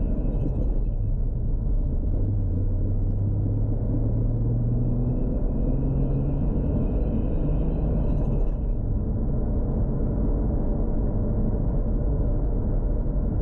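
Tuned Toyota Supra MK4's turbocharged 2JZ straight-six running at low revs on the move: a steady low drone whose pitch drifts gently up and down, with no hard acceleration.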